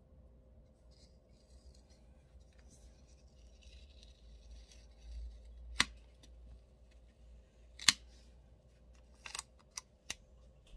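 Soft rustling of sticker paper, then sharp clicks and taps as paper sticker boxes are peeled and pressed onto a planner page: two loud ones about two seconds apart, then three quicker ones near the end.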